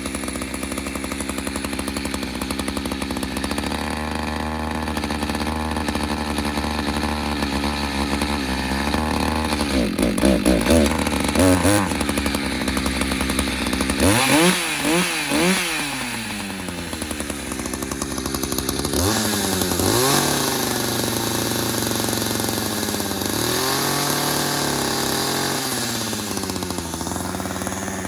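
Gas chainsaw idling, then revved up and down several times as it cuts into wood. The loudest revs come about 10 to 16 seconds in.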